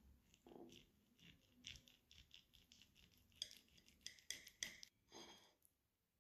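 Table knife and fork cutting through a grilled eggplant roll on a ceramic plate. Soft sawing comes first, then, from about three and a half seconds in, several sharp clinks of the metal cutlery against the plate as the blade goes through. Quiet overall.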